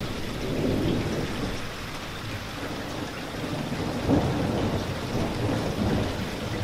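Steady rain with thunder rumbling, starting abruptly out of silence; the loudest roll of thunder comes about four seconds in.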